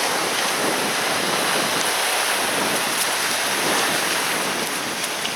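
Steady rushing wash of sea surf, an even noise with no separate splashes.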